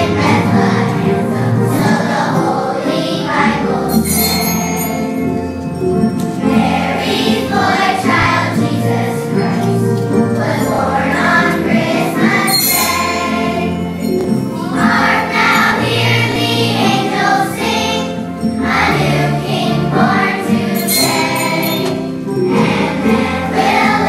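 Children's choir singing a Christmas song over a steady accompaniment, with jingling percussion ringing out at intervals.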